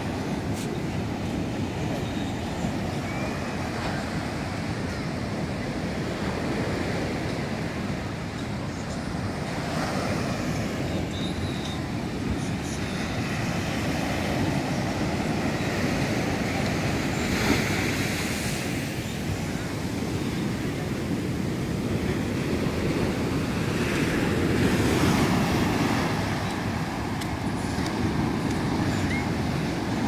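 Sea surf breaking and washing up a sandy beach: a continuous rush of water that swells louder several times as waves break, with the loudest surges a little over halfway through and again near the end.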